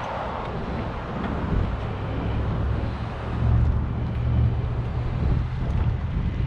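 Wind buffeting the microphone of a moving bicycle: a low, uneven rumble that swells and eases, loudest three to four seconds in.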